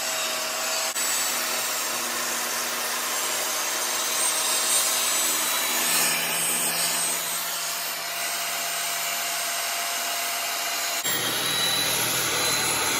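Ryobi table saw running and cutting a ledge (rabbet) along a cedar board fed against the fence, a steady loud whine and rasp of blade in wood. The sound changes abruptly near the end.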